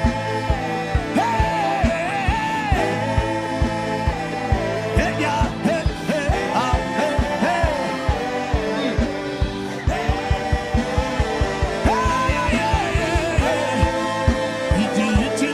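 Gospel worship music: a wavering sung melody over sustained chords and a steady beat.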